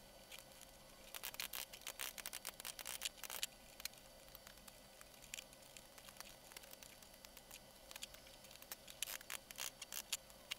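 Pincers and a hammer-tapped tool pulling nails out of the metal corner trim of an old wooden trunk: scattered faint metallic clicks and scrapes, coming in small runs.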